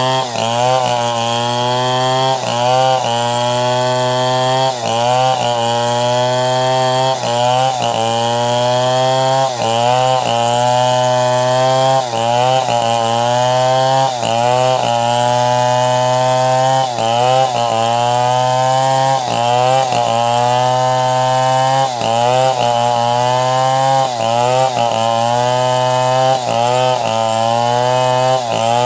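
Chainsaw running at high revs while ripping a log lengthwise into planks. Its pitch dips and climbs back about once a second as the cut loads it.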